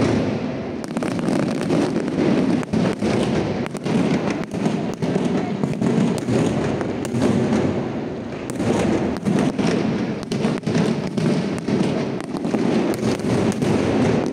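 Aerial fireworks display: many shell bursts and crackling stars going off in quick succession, a continuous run of sharp bangs and crackle with no pause.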